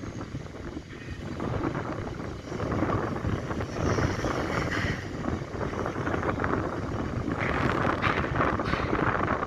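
Strong wind buffeting the microphone in gusts, growing stronger over the last couple of seconds.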